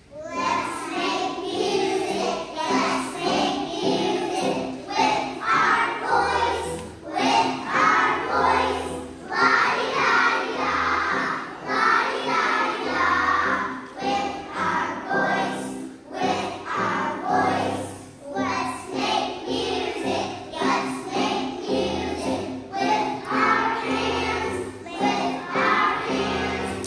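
A group of young children singing a song together with hand motions, over instrumental accompaniment with a steady bass line; the music starts abruptly at the outset.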